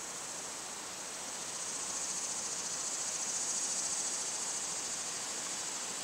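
Steady high-pitched chorus of insects, a fast even pulsing trill, swelling a little louder in the middle.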